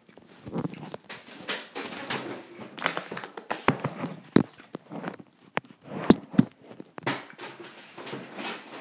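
Handling noise on a phone's microphone: rubbing and rustling with a scatter of sharp clicks and knocks as the phone is moved about and set in place on a desk.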